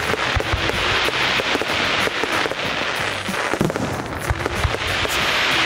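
Fireworks display: dense, continuous crackling from many bursting stars, with several deep booms of shells going off through it.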